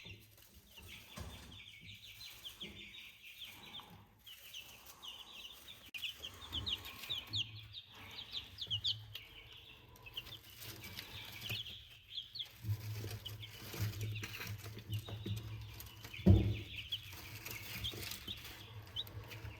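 Baby chicks peeping throughout, many short high cheeps overlapping one another. A single dull thump comes a few seconds before the end.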